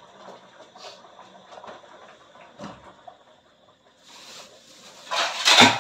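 Dishes clattering and scraping in a metal wire dish rack as a plate is pulled out, loudest in a burst near the end, after a few faint knocks and a brief rustle.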